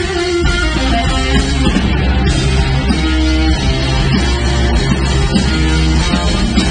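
Live rock band playing loudly, with electric guitar over a drum kit.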